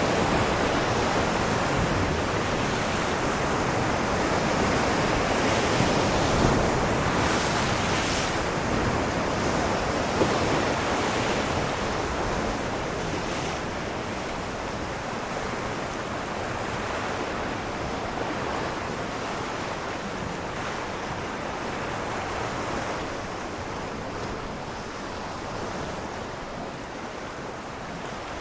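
Ocean waves washing and breaking against rocks, a continuous surf noise with a few stronger surges in the first half that slowly eases off toward the end.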